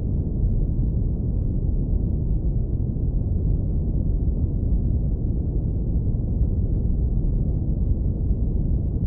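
Synthetic brown noise low-pass filtered to a deep, warm rumble with nothing in the upper range, steady and unchanging.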